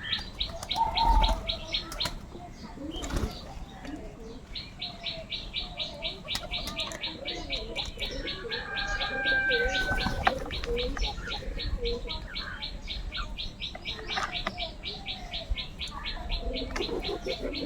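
Birds calling: an even run of short, high chirps at about five a second, which stops briefly near the start and then resumes. Under it are varied lower calls and a few knocks, the loudest about a second in.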